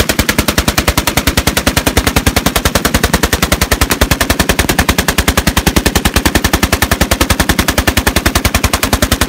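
Browning 1919A4 belt-fed machine gun firing one long full-auto burst, an even rapid rattle of about nine shots a second that cuts off at the end.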